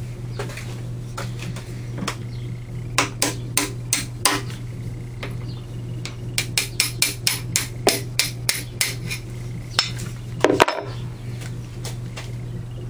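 Hammer tapping a steel punch to drive out the governor pin of a Hercules 2½ HP hit-and-miss engine: a few sharp metal taps, then a quick run of about a dozen taps at four or five a second, and a couple more near the end.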